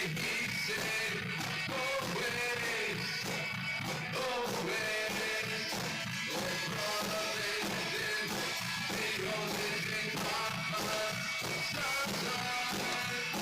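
Background rock music with singing, steady throughout.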